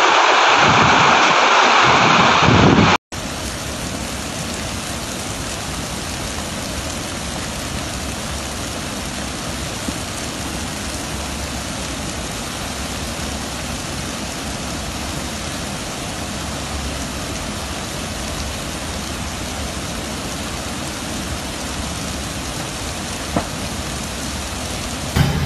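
Wind buffeting the microphone over a flooded street for about three seconds. Then, after a sudden cut, a steady rush of muddy floodwater cascading down a concrete retaining wall.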